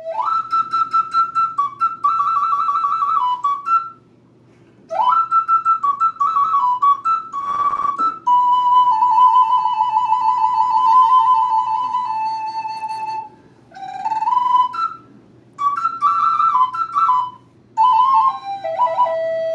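Wooden flute played solo: short phrases of clear, high notes, several of them opening with an upward slide, broken by pauses of about a second. In the middle comes one long held note, just after a brief breathy, rough burst.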